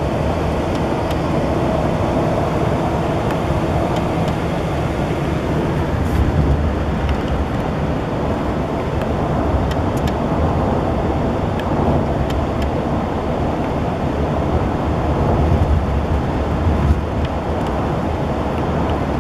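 Steady road and engine noise of a moving car, heard from inside the cabin, with a few faint clicks.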